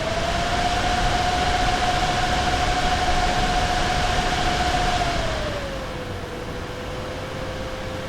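Nvidia GeForce RTX 2070 Super graphics card fans surging. Right at the start their whirring hum and hiss step up in pitch and loudness, hold for about five seconds, then wind back down. The fans rev up and down on their own even with fan speed set to manual, which is the fault.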